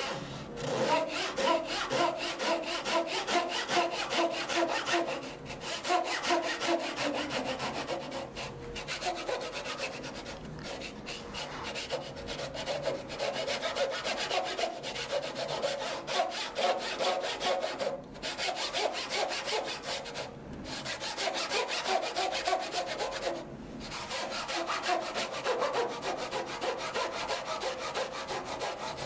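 Japanese backed pull saw (dozuki) cutting through wood by hand: steady back-and-forth strokes with a ringing tone from the blade, pausing briefly a few times.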